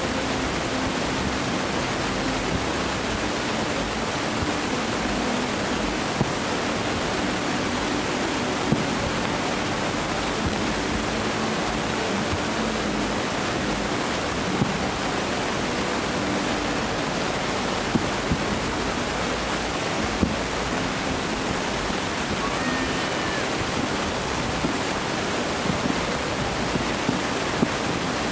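Steady rushing noise of surf, with a few faint sharp pops now and then, more of them near the end.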